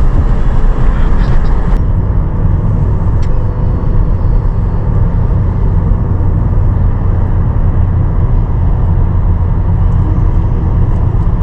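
Steady low rumble of a car's road and engine noise, heard from inside the moving car.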